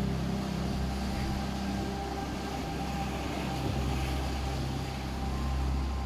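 Meditation music of held low synthesizer drone tones that shift every couple of seconds, laid over the steady wash of sea waves breaking among rocks.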